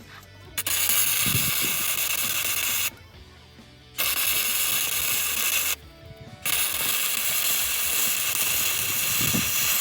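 Arc welding a cracked cast steering knuckle with a portable trail welder: a loud, even crackling hiss of the arc, struck three times with short pauses between the beads, each stopping abruptly.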